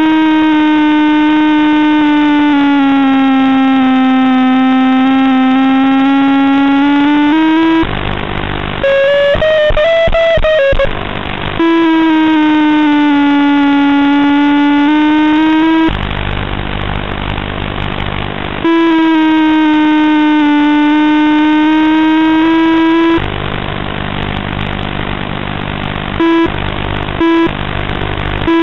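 Electric motor of an FPV model glider heard through its onboard microphone: a steady whine that drifts slowly down and up in pitch. Three times it drops out for a few seconds, leaving a rushing, crackly noise.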